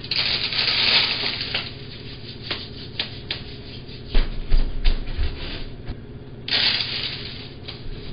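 Pumpkin seeds being handled and eaten: scratchy rustling and crunching in two bursts, near the start and about six and a half seconds in, with scattered small clicks and a few dull thumps around the middle, picked up by a home security camera's microphone.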